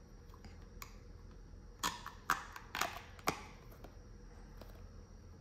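Hard clear plastic parts of a wearable breast pump clicking and tapping together as the cup is fitted onto the breastshield: several sharp clicks, most of them between about two and three and a half seconds in.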